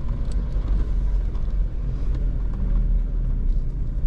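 Jeep driving slowly over a dirt trail, heard from inside the cab: a steady low engine and tyre rumble with a few light knocks and rattles.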